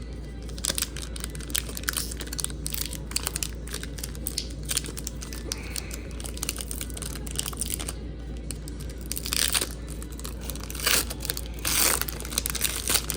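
Crinkling and tearing of a trading-card pack wrapper as a pack is opened, in quick irregular crackles, with the loudest tears near the end.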